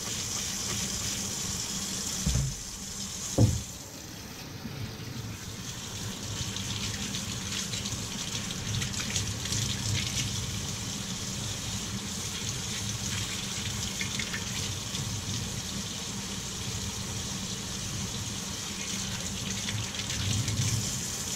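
Kitchen faucet running into a stainless steel sink, the water splashing over hands rinsing a small bicycle derailleur pulley. Two short knocks come a little over two and three seconds in.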